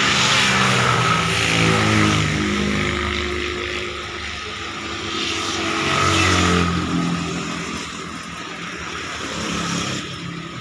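Motor vehicle engines passing, their pitch rising and falling, loudest about a second in and again around six seconds.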